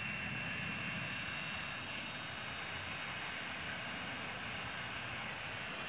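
Steady mechanical drone with a faint, high, steady whine running through it.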